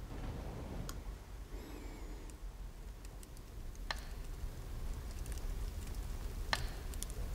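Quiet room tone: a steady low rumble with a few faint, scattered clicks, about one every two or three seconds.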